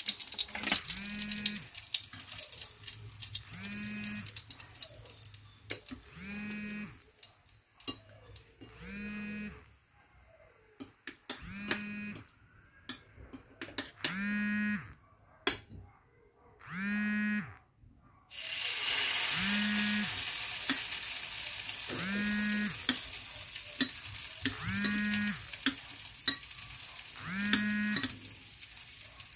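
Battered crab sticks frying in a pan of hot oil. A steady sizzle jumps suddenly louder about two-thirds of the way in, with light clinks of tongs. A short tone repeats about every two and a half seconds throughout.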